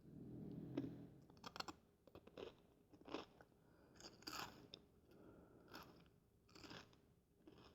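Fritos corn chips being chewed close to the microphone, with a sharp crunch roughly every second. A low rumble fills the first second.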